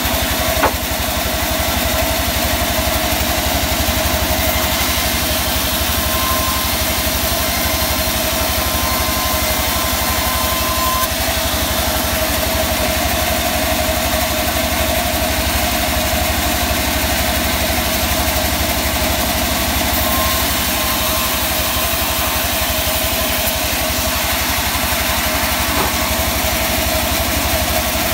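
Sawmill band saw running steadily while mahogany planks are fed through the blade, a constant machine drone with a steady whine. One short knock about a second in.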